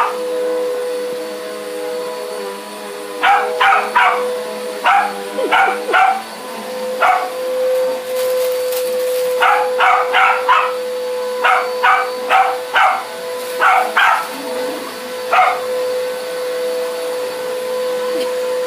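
A dog barking in short bursts, over and over in clusters, over the steady hum of a running vacuum cleaner.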